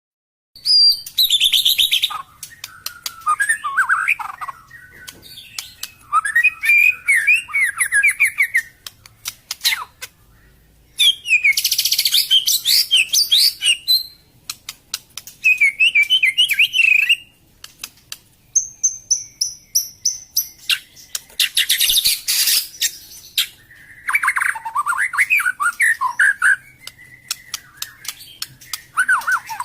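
White-rumped shama (long-tailed murai batu) singing: a run of varied phrases of whistles, fast trills and sharp clicking notes, each phrase lasting one to three seconds with short pauses between.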